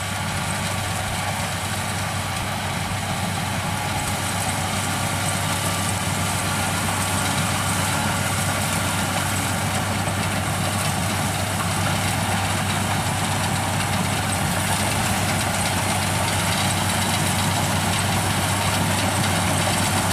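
Rice combine harvester's diesel engine running steadily under load as it cuts and threshes rice, growing slowly louder.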